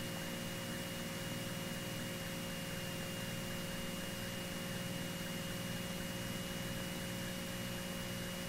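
Faint, steady hiss and electrical hum with a thin high-pitched whine: the line noise of the aircraft intercom audio feed while no one is talking.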